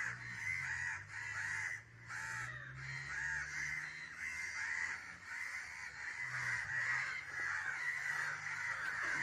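Crows cawing over and over in quick succession, about three calls a second, without letting up.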